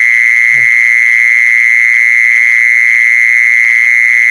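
Loud, unbroken high-pitched insect trill, a fast buzzing pulse on one pitch: the call of the jee-son insect, recorded for playback to lure more of them.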